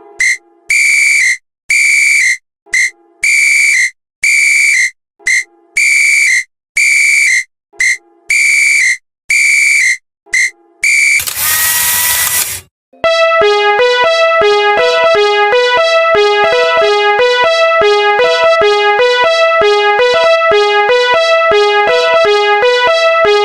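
A railroad crossing alarm sounds as a run of bright, high repeated dings, about one a second. About eleven seconds in there is a short burst of rushing noise, and then looping synthesizer music with a quick steady beat takes over.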